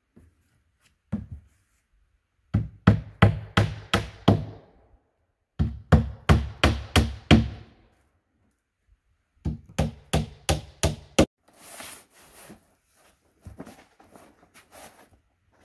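Hammer driving nails through roll roofing into a wooden shed roof: three quick runs of about seven blows each. Softer rustling follows near the end.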